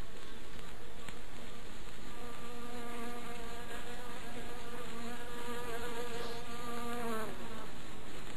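A fly buzzing steadily, starting about two seconds in and stopping shortly after seven seconds, over a faint steady background hiss.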